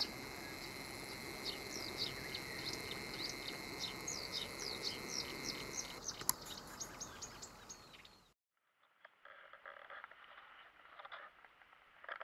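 Small birds chirping in quick, repeated calls over a steady outdoor hiss, fading out about eight seconds in. After a brief silence come scattered light clicks and taps, a few of them close together near the end.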